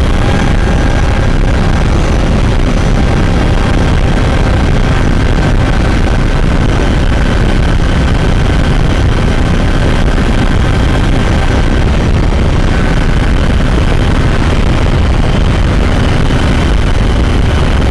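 Tesla-built electric motor and reduction gearbox of a 2012 Toyota RAV4 EV under load at about 65 mph, heard from under the hood. A steady whine in several faint tones sits over a loud rush of road and driving noise. The noise comes from the motor assembly, which the owner says apparently has a gearbox and drivetrain problem.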